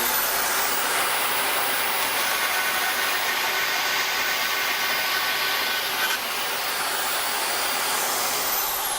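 Milwaukee corded portable band saw, mounted in a table, running and cutting through a piece of metal with a steady grinding hiss; the sound eases a little about six seconds in. Near the end the motor winds down with a falling whine.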